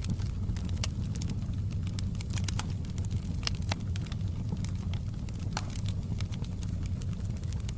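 Fire in a fireplace crackling: irregular sharp pops and snaps, several a second, over a steady low rumble.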